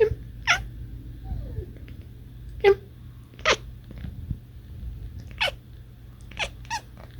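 A cat chirping and chattering: about seven short, quick chirps that each slide down in pitch, coming singly and in pairs with pauses between.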